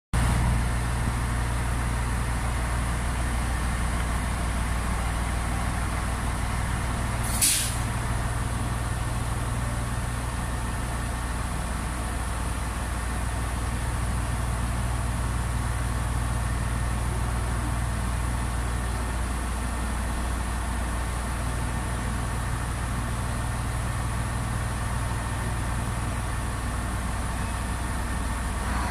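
Kiya 141 track-inspection diesel railcar standing at a platform with its diesel engine idling steadily. A short, sharp hiss of compressed air comes about seven and a half seconds in.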